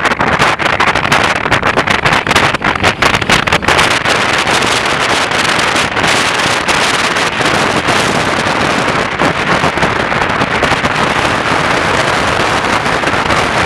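Strong wind buffeting the camera microphone: a loud, rough rush that is choppy, with brief dropouts, over the first few seconds and steadier after that.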